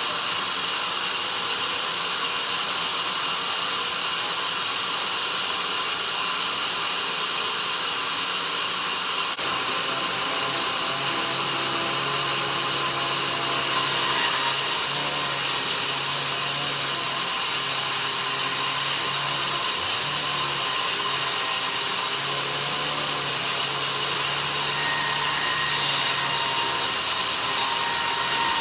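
Sawmill bandsaw blade cutting lengthwise through a log: a steady, high, hissing rasp. About a third of the way in a low motor hum joins it, and about halfway through the cut grows louder and harsher.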